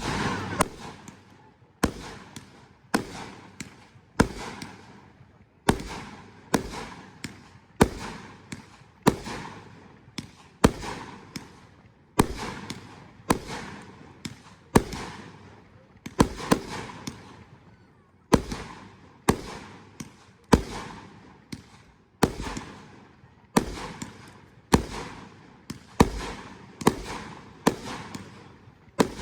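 Fireworks going off in a long, steady series: a sharp bang about once a second, sometimes two close together, each one trailing off before the next.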